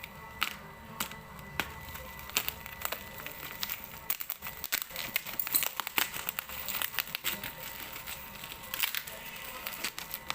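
Packaging being torn open and crinkled by hand, a run of irregular crackles and rustles that grows busier about four seconds in.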